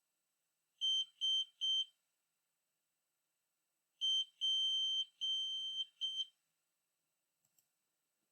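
Arduino-driven piezo buzzer beeping Morse code in a steady high tone. It sounds three short beeps, then after a pause a short, two long and another short beep.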